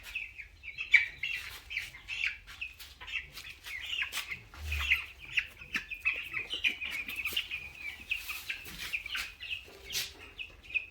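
A flock of two-week-old broiler chicks peeping and cheeping without a break, many short high calls overlapping, with a few scattered clicks and rustles among them.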